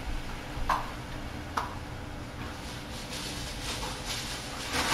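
Broccoli and carrots steaming and sizzling in a cast-iron skillet, a soft patchy hiss that grows from about halfway in, over a steady low hum. Two short sharp knocks come in the first two seconds.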